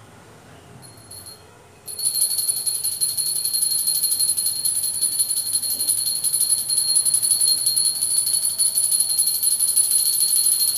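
Puja hand bell rung rapidly and continuously, a bright high ringing made of many quick strokes. A short shake about a second in, then steady ringing from about two seconds on until it cuts off suddenly.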